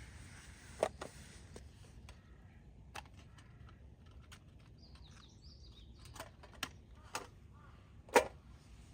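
Sharp snaps of dry wood, about seven cracks at irregular intervals, the loudest near the end. Faint bird chirps are heard around the middle.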